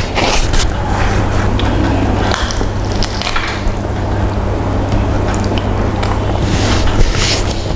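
Close-up sounds of a person eating: irregular wet chewing and biting of food, with a steady low hum underneath.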